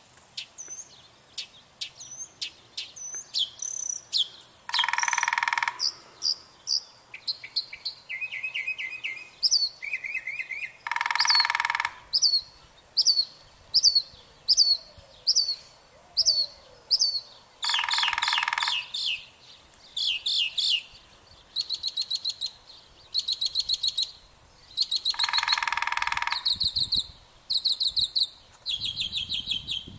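Birds calling. Runs of high, hooked chirps repeat about twice a second, and a louder, harsher call about a second long comes every six or seven seconds.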